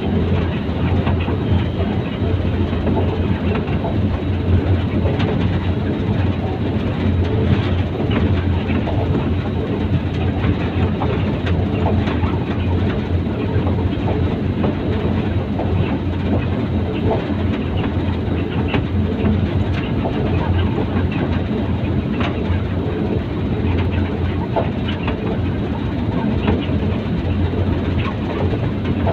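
Diesel locomotive running along the line, heard from its cab: a steady low engine drone with scattered clicks of the wheels over the rails.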